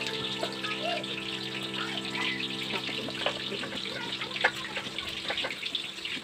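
Water running and splashing, with scattered small clicks and clinks, under a held chord of soft background music that stops about five and a half seconds in.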